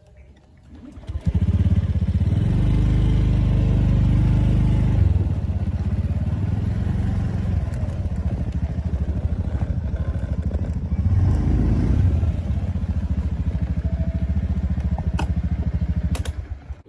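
Motorbike engine running as the bike is ridden along, with a fast low pulsing note that swells about a second in and again near the eleventh second. It stops abruptly near the end.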